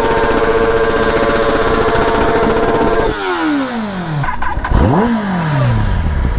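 Sport motorcycle engine held at high revs with a steady high-pitched wail, then dropping away about three seconds in, followed by a quick throttle blip about five seconds in and another right at the end.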